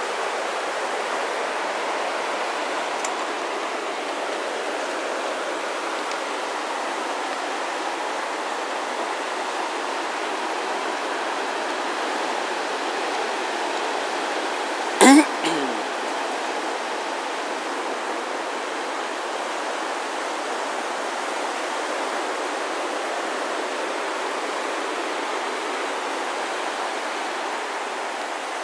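Ocean surf: a steady rush of breaking waves, with one brief, loud, sharp sound about halfway through.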